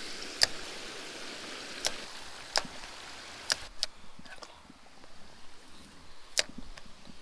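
Faint running creek water, punctuated by about six sharp, irregularly spaced clicks.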